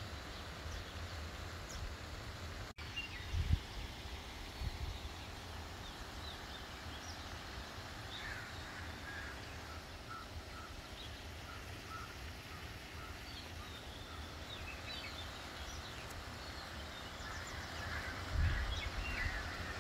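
Open-air ambience: a steady low rumble with faint bird calls over it, including a run of short repeated chirps in the middle. A brief low thump about three and a half seconds in and another near the end.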